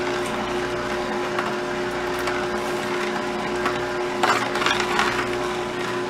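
Vertical slow juicer running with a steady motor hum as its auger crushes produce, with a short spell of crackling about four seconds in.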